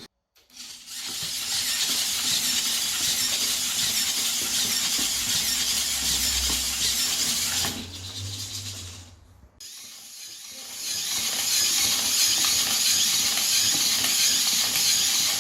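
Hobby servo motors of a 3D-printed robot dog running, a steady high-pitched whine with a hiss in it. It dies away for about three seconds near the middle, then starts again.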